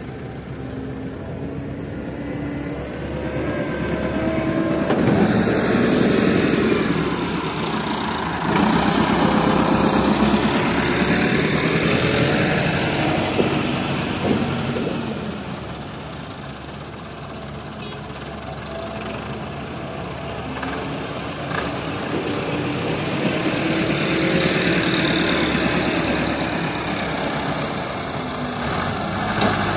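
Diesel tractor engine working under load hauling sand, its revs and loudness rising and falling several times.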